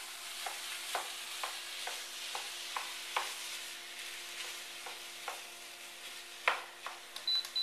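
Ground beef and chopped onion sizzling as they brown in a nonstick skillet, while a plastic meat chopper breaks up the meat, tapping and scraping the pan about twice a second, with one louder knock near the end. Two short high beeps just before the end.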